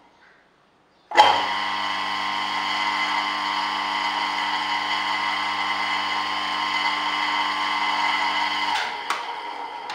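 Restored electric motor switched on about a second in, starting abruptly and then running steadily with a whir over a low hum. Near the end the power is cut and it coasts down, with a click just after.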